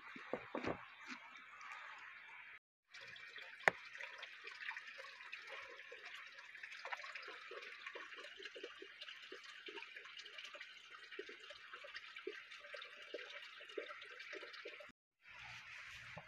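A small forest stream trickling and dripping over rocks, steady apart from two brief drops to silence. There are a few knocks in the first second and one sharp click close to four seconds in.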